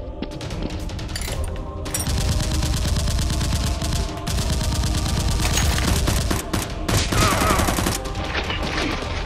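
Rapid automatic gunfire sound effects, dense bursts of shots starting about two seconds in and stopping near the end, over steady background music.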